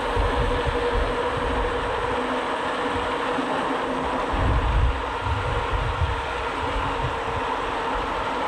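Strong wind buffeting the microphone while riding: a steady noise with uneven low rumbles, heaviest about halfway through.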